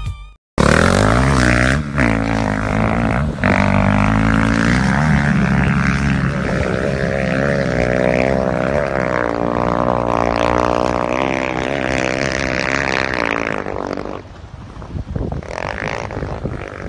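Engine of a small vehicle skimming across water at high revs, its pitch wavering up and down, fading away about fourteen seconds in.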